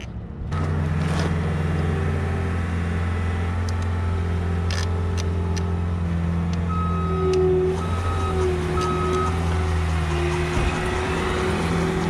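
A vehicle engine running steadily, coming in suddenly about half a second in. Near the middle, three short beeps of a reversing alarm, with a few light clicks of small parts being handled.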